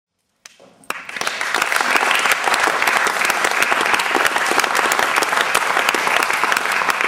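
Theatre audience applauding. The clapping starts about half a second in and quickly builds to steady, dense applause.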